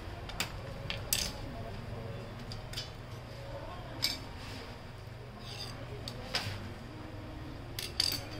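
Irregular small clicks and taps of plastic and metal as a tool and hands work on the bare chassis of an HP LaserJet printer, about ten of them, over a low steady hum.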